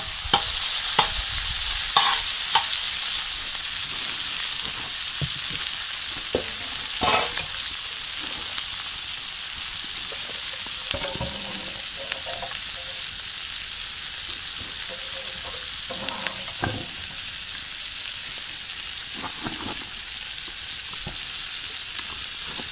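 Moose fillet searing in butter, a steady sizzle and spit of fat. A few sharp clicks stand out, most of them in the first few seconds.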